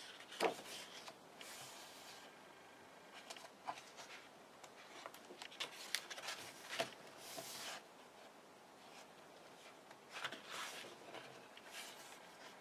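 Pages of a hardback photo book being turned by hand: faint paper rustles and sharp flicks in a few short groups, with quieter stretches between.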